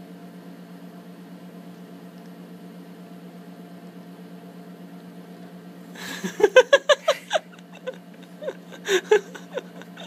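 A steady low hum, then about six seconds in a person bursts out laughing in quick, rhythmic pulses, with more chuckling near the end.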